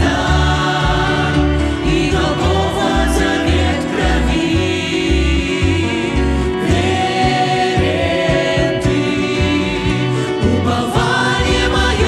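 Mixed voices of a small worship group singing a hymn in Russian in harmony, accompanied by violin, upright double bass, keyboard and acoustic guitar, with the bass holding low notes under the singing.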